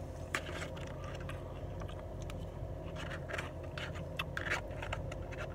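Plastic fork scraping and picking at cabbage salad in a foam takeout container, in short irregular scratches and clicks, with crunchy chewing, over a steady low hum.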